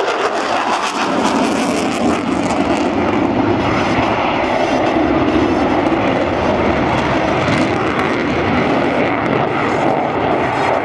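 Fixed-wing aircraft engine noise, loud and steady, of a plane flying overhead.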